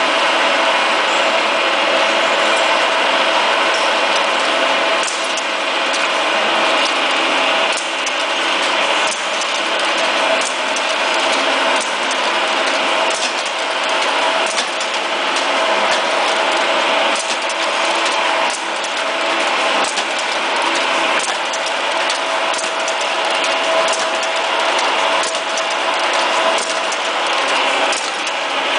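Can seaming machine running steadily: a continuous mechanical whirr with a steady whine and sharp clicks about once a second.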